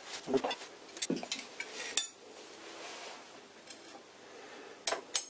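Metal lathe cross-slide parts being handled and fitted by hand, with light clinks and scrapes: a cluster of knocks in the first two seconds, then two sharp clinks near the end.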